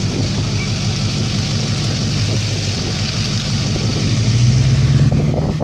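A vehicle engine runs with a steady low hum. About four seconds in it rises in pitch and grows louder, over a steady hiss.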